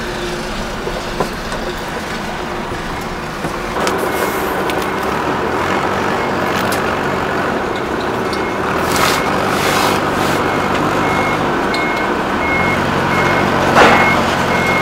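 A vehicle engine running steadily, and in the last few seconds a reversing alarm beeping about three times every two seconds.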